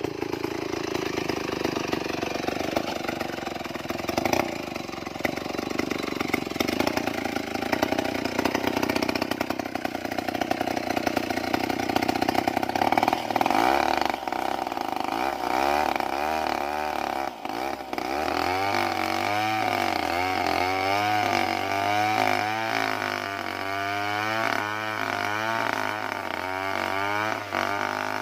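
Stihl 070 two-stroke chainsaw running, ripping a log lengthwise into slabs. About halfway through its pitch starts rising and falling over and over as the bar works through the cut.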